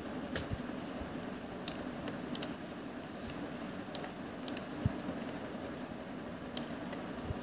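About ten sharp clicks from a computer keyboard and mouse, spread irregularly, over a steady low background hum.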